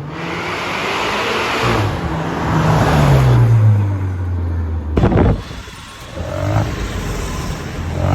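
Modified car engine and exhaust revving, its pitch falling back as the revs drop, with a sharp crack about five seconds in.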